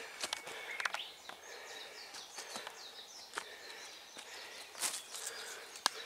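Footsteps on a wooded slope, crunching and crackling through leaf litter and twigs on loose, rain-softened ground, with a few faint bird chirps.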